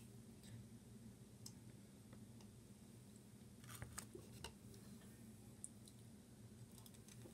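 Near silence: faint room tone with a few soft clicks, the clearest cluster about four seconds in.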